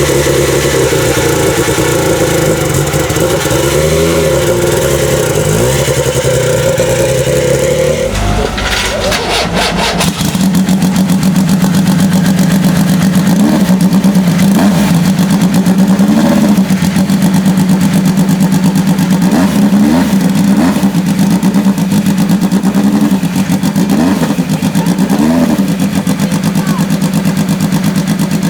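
Lancia Delta S4 Group B rally car's turbocharged and supercharged four-cylinder engine running. It holds steady higher revs for about eight seconds, drops to a lower, steady idle about ten seconds in, then gives a few short throttle blips.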